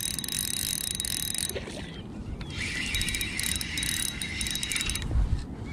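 Spinning reel's drag clicking fast as a hooked sea trout pulls line off, in two runs: one stopping about a second and a half in, another from about three seconds to five.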